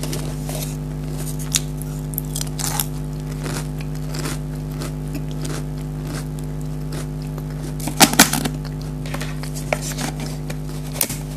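Pringles potato crisps being bitten and crunched in the mouth, close to the microphone: scattered crisp crunches, with a cluster of the loudest bites about eight seconds in. A steady low hum runs underneath.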